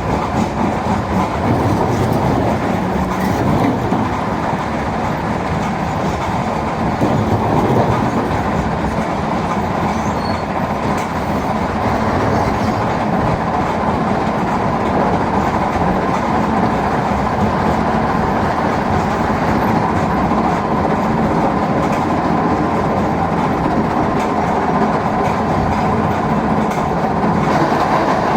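Mobile stone crusher running under load, with stones rattling and grinding through it over the steady drone of heavy diesel machinery. The din is loud and continuous, with a constant fast rattle.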